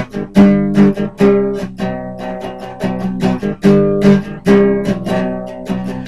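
Acoustic guitar strummed in a steady rhythm, about two to three strums a second, moving through a chord progression without singing.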